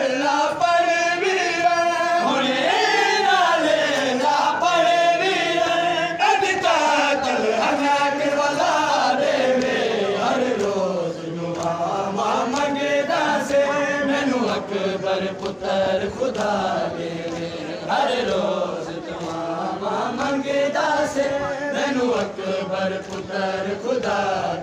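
A group of men chanting a Shia noha (mourning lament) together, their drawn-out, wavering notes rising and falling without a break.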